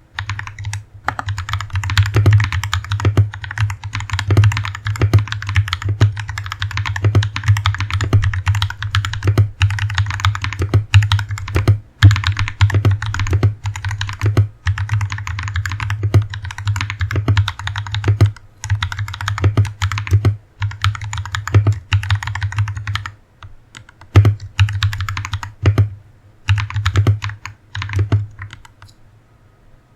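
Fast typing on a Press Play Orbiter67 mechanical keyboard: a dense, continuous run of keystroke clacks that breaks into short bursts with pauses near the end and stops just before it closes.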